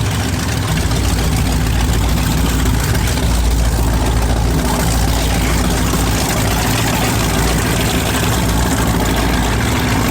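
Engines of a Black Thunder performance powerboat idling with a steady, deep rumble.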